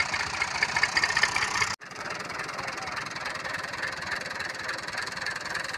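Tractor-powered wheat thresher running: a steady engine with a dense mechanical clatter. The sound cuts out for an instant about two seconds in, then carries on.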